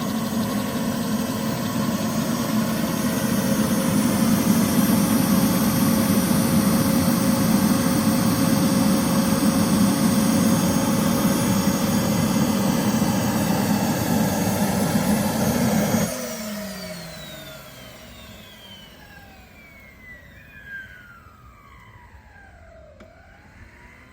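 Turbine-powered model helicopter with a Jetcat PHT-3 XL turboshaft running steadily. About two-thirds of the way through the sound drops suddenly, and whining tones fall in pitch as the turbine and rotor spool down after shutdown.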